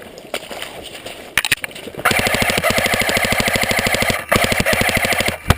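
Airsoft rifle firing on full auto: a few single pops, then a long rapid burst of about two seconds and, after a brief break, a second burst of about a second.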